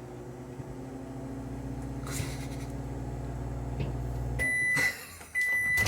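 Microwave oven running with a steady low hum, which stops about four and a half seconds in at the end of its timed cycle. Its beeper then sounds two long, loud beeps.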